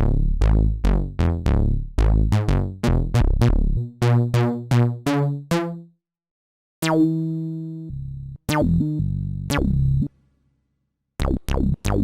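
Roland System-100 software synthesizer playing an analog-style patch. A quick run of short, plucky bass notes, each bright at the start and dulling fast, gives way after a short gap to longer held notes. These cut off suddenly, and a new burst of notes starts near the end.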